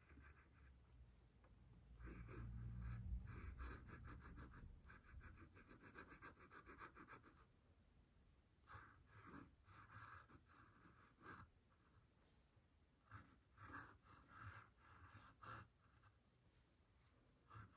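Pen nib scratching on sketchbook paper in quick short strokes, drawing line-art flowers; the scratching comes in clusters with short pauses between them. A low rumble of handling sits under the strokes a couple of seconds in.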